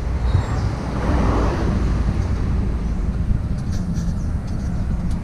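Large diesel truck engine running, a steady low rumble.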